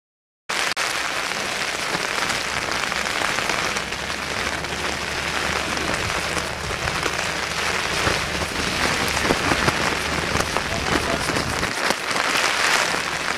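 Steady rain pattering and crackling on the camcorder and its surroundings, a little louder near the end, after a brief dropout at the start.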